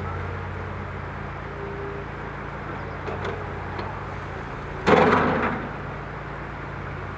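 Excavator's diesel engine running steadily, with a few light knocks and then, about five seconds in, one loud crash that dies away within about half a second.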